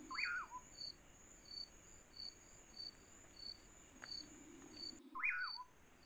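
Faint cricket chirping, about two chirps a second, over a steady high insect whine. A bird's short call that rises and then falls comes twice, near the start and about five seconds in.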